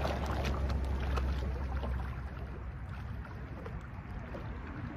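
Wind rumbling on the microphone over light splashing and sloshing of shallow water as a person and a puppy wade and paddle. The wind rumble eases about two seconds in, leaving a softer water wash.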